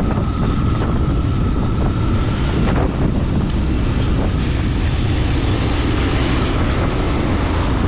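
Steady rumbling wind noise on the microphone mixed with vehicle and road noise from travelling along a highway.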